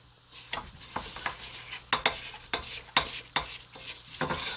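Spatula scraping thick batter down the sides of a stainless steel stand-mixer bowl, in a run of short, irregular strokes.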